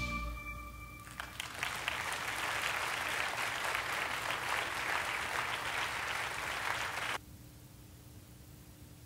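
A church congregation applauding, starting about a second in as the last held notes of the song's accompaniment die away. The clapping stops abruptly near the end, leaving faint hiss.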